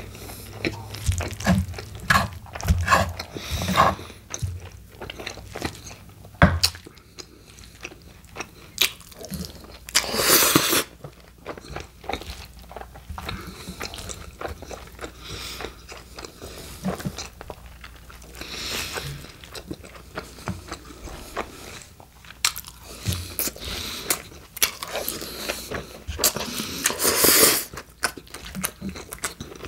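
Close-miked chewing of a Chipotle steak burrito with lettuce and salsa: wet smacking and clicking mouth sounds throughout, with louder crunches about ten seconds in and again near the end, where lettuce is being chewed.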